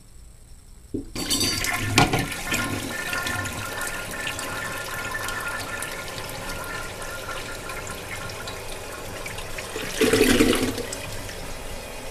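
Toilet flushing with a rubber plunger sitting in the bowl: water rushes in suddenly about a second in and keeps swirling, with a sharp knock about two seconds in and a louder surge of water near the end.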